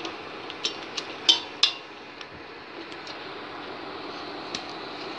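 A wooden spatula stirring thick, thickening cornstarch paste in a metal pot, with a few sharp clicks and scrapes in the first two seconds and fainter ones later, over a steady hiss.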